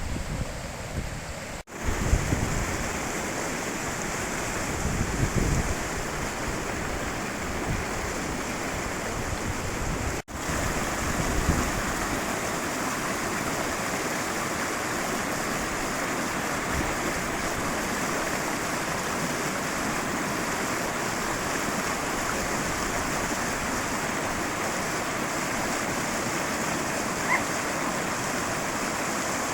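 Mountain river rushing steadily over rocks, an even wash of water noise. Irregular low rumbles sit under it for the first dozen seconds, and the sound drops out for an instant twice.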